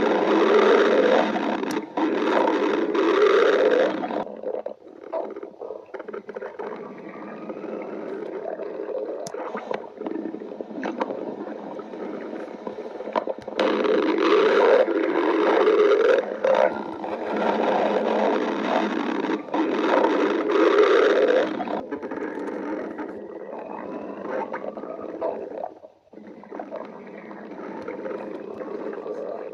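Stomach growling: long, wavering rumbles that swell into loud bouts at the start, about halfway through and again a few seconds later, with quieter rumbling in between.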